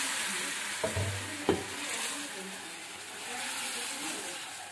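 Hot tempering oil with garlic, cumin and curry leaves sizzling in a small metal pan as kadhi is ladled into it. A metal ladle clinks against the pan twice, about a second and a second and a half in.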